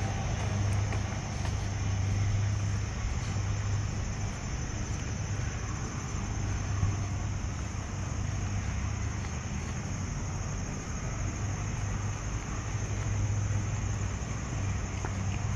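Steady low rumble of road traffic, with a continuous high-pitched hiss above it.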